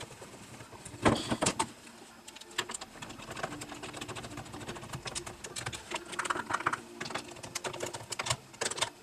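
Small clicks and knocks of plastic and metal parts being handled and fitted by hand on a chainsaw during reassembly, with a louder cluster of knocks about a second in.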